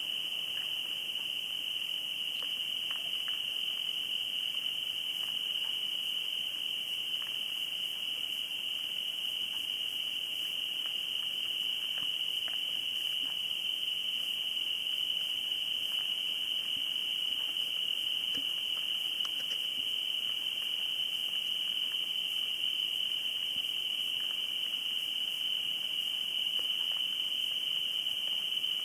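Steady chorus of crickets trilling without a break in one high-pitched band, with a few faint scattered ticks.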